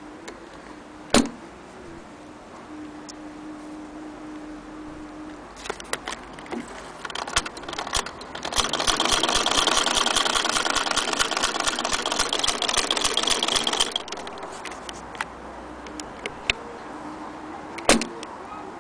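1902 Singer 48K hand-crank sewing machine stitching through fabric: a few slow turns with single clicks, then about five seconds of fast, steady mechanical clatter as it is cranked, easing back to scattered clicks. There is a sharp click near the start and another near the end.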